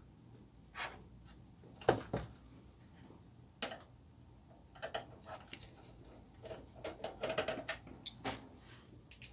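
Scattered small clicks, taps and scrapes of a screwdriver working a screw out of a laser printer's plastic and metal frame, and of gloved hands handling the parts. There is a denser run of quick clicks in the second half.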